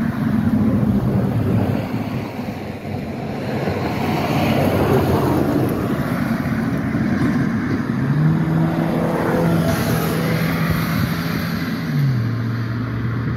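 Motor vehicle noise: a broad rushing rumble with a steady low engine hum that steps down in pitch near the end.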